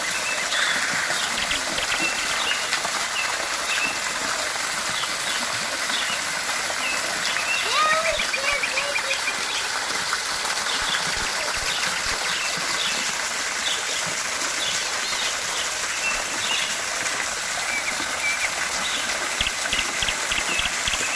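Steady rush of a waterfall, with small birds chirping over it throughout and a short, louder call about eight seconds in.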